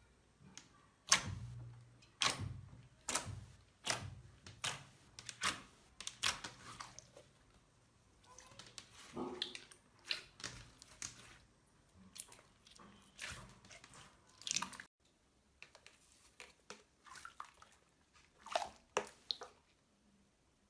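Slime being squeezed and worked by hand, giving sharp sticky pops and clicks roughly once a second. From about fifteen seconds in, the clicks turn sparser and softer.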